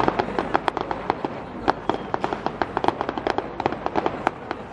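Fireworks display with aerial shells bursting overhead: a rapid, uneven run of sharp bangs and crackles, many each second.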